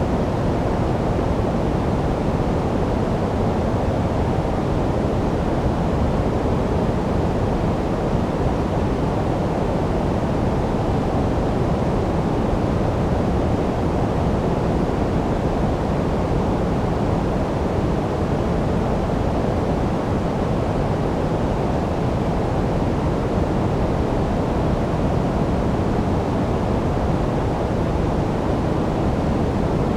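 Steady, unchanging generated noise, sold as white noise for sleep, with most of its strength low down, so it sounds deep and soft rather than hissy.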